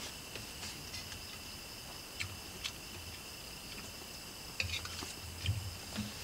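Steady high chirring of insects, two unbroken tones, with a few short clicks and scrapes of a spoon against a plate and food wrapper while someone eats, the busiest cluster a little past the middle.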